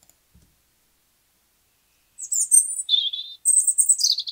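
A short recorded birdsong sound file playing back on a computer, starting about two seconds in: quick high chirps, then a lower trill, then more chirps.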